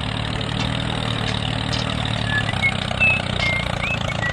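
Small engine idling steadily, with a few short high chirps over it.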